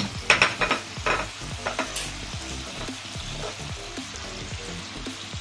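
Cubed meat sizzling in its own rendered fat in a pot, the cooking liquid nearly boiled away. A few sharp clicks and knocks in the first two seconds, the loudest right at the start.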